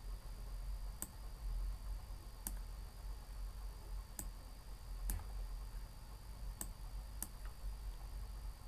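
Computer mouse clicking: about six sharp, separate clicks at irregular intervals over a steady low hum.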